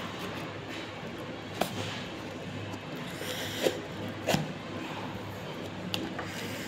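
Taped cardboard box being cut and pried open at its seam with a knife: a few sharp clicks and scrapes of the blade on cardboard, with short rustles of cardboard and packing tape.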